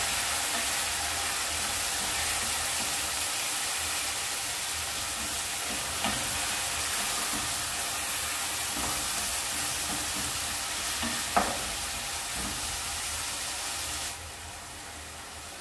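Chopped onion, tomato, green chilli, garlic, ginger and herbs sizzling in hot oil while being stirred, with two sharp knocks along the way. The sizzle drops suddenly to a softer level near the end.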